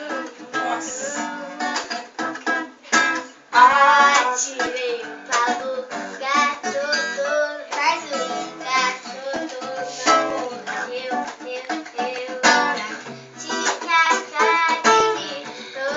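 An acoustic guitar strummed, with a voice singing along.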